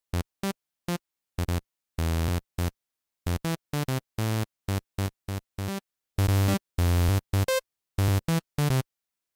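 Serum software synthesizer playing a sawtooth bass patch: a string of short, separate notes with clean silence between them, a few held for about half a second.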